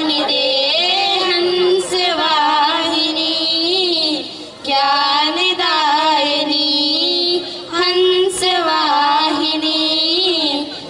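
Two girls singing a Hindi prayer song to the goddess Saraswati into handheld microphones, in long held phrases with brief breaks about four and a half and seven and a half seconds in.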